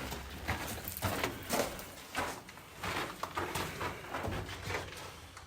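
Footsteps walking at an easy pace, about two steps a second, inside an air-raid shelter tunnel.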